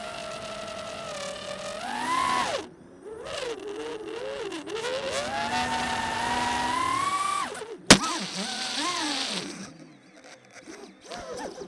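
FPV racing quadcopter's brushless motors whining, the pitch rising and falling as the throttle changes, over a rush of air. A single sharp crack comes about eight seconds in, after which the whine wavers and dies away.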